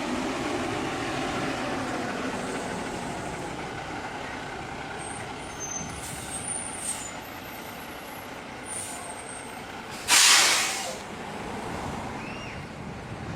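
Steady engine rumble of a large vehicle, with one loud burst of compressed-air hiss, under a second long, about ten seconds in.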